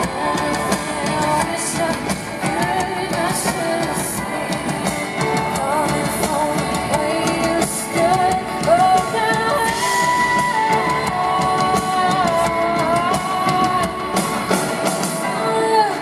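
Live pop-rock band performance: a woman singing into a microphone over electric guitar and drum kit, holding long sustained notes about midway through.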